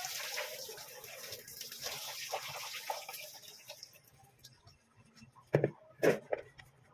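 Tap water running and splashing into a plastic basin and a stainless steel sink as chopped vegetables are rinsed and the water tipped out, fading about four seconds in. Near the end, two sharp knocks.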